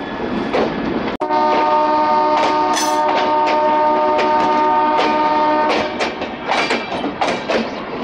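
A locomotive air horn sounds one long chord of several tones. It starts abruptly just over a second in and holds for about four and a half seconds. Before and after it comes the uneven clatter of a moving train.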